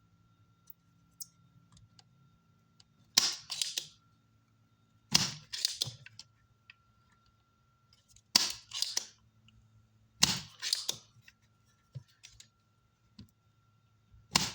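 Spring-loaded desoldering pump (solder sucker) snapping four times, a couple of seconds apart, each snap followed by a second click, as solder is sucked off a power-supply capacitor's legs on a circuit board. A faint steady hum sits underneath.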